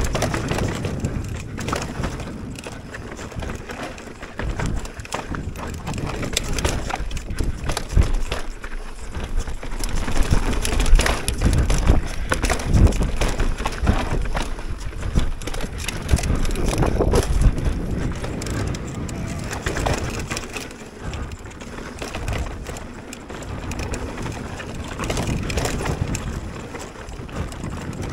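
Giant Reign mountain bike ridden fast down a dirt trail: tyres crunching over dirt and rock while the bike rattles and knocks over rough ground, the loudness rising and falling with the terrain.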